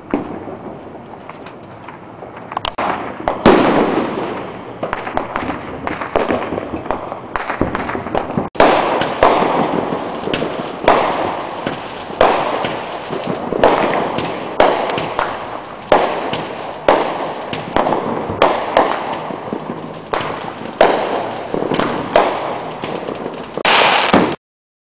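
Fireworks going off: scattered pops and crackles with one big bang about three and a half seconds in, then a steady run of aerial bursts, each a sharp bang trailing off, roughly one a second. The sound cuts off suddenly near the end.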